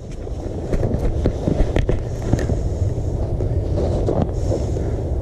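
Wind buffeting the microphone: a steady low rumble with a few faint clicks.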